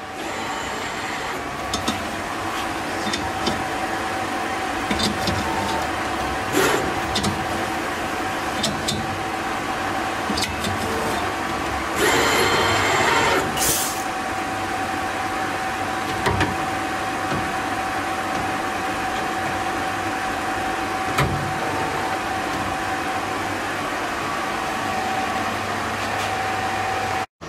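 Automated thread-checking machine running with a steady hum and a constant tone, broken by scattered clicks and knocks of metal parts being handled. About twelve seconds in there is a hiss lasting about a second and a half.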